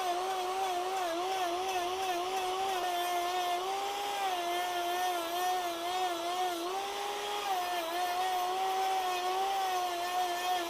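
High-speed electric grinder fitted with a rotary burr, cutting into wood. Its motor whine dips and recovers again and again as the burr bites and is eased off.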